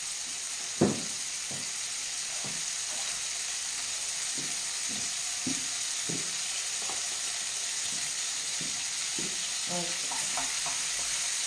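Chopped tomatoes sizzling steadily in a frying pan on a gas flame as they sauté. There is a sharp knock about a second in and lighter clicks and knocks here and there.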